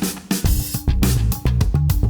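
Background dubstep music with heavy bass and a driving drum beat.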